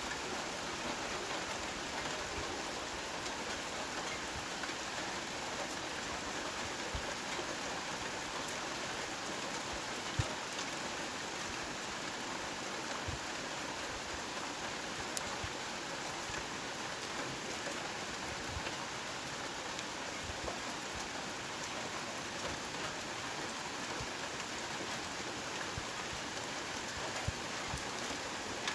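Heavy rain falling steadily as an even hiss, with scattered sharper drops striking a surface, one louder about ten seconds in and another near the end.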